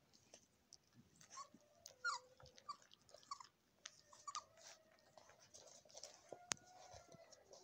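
Nursing puppies squeaking and whimpering faintly in short rising squeaks, with a long thin whine held through the second half, and one sharp click about six and a half seconds in.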